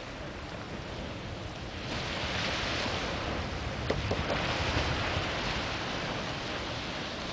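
Small sea waves washing in the shallows around a paddleboard, with wind buffeting the microphone; the wash grows louder about two seconds in, and a couple of short knocks come near the middle.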